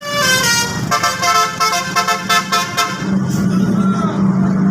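A bus's multi-tone 'telolet' horn playing a quick tune of changing notes for about three seconds, then cutting off and leaving a steady low engine drone.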